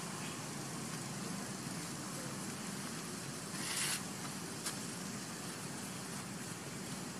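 Steady outdoor background noise, a low hum under an even hiss, with a short rustle about three and a half seconds in and a faint click just after.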